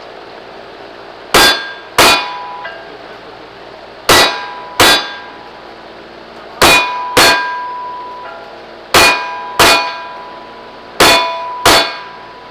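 Gunshots at steel targets: ten shots in five pairs, each pair two shots about half a second apart with a couple of seconds between pairs, and the struck steel ringing after the shots.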